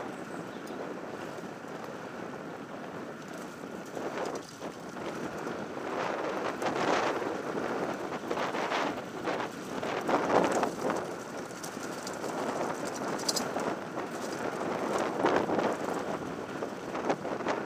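Mountain bike descending a loose gravel track at speed: tyres crunching over stones and the bike rattling and knocking over bumps, with wind rushing on the microphone. The knocking gets louder and choppier from about four seconds in.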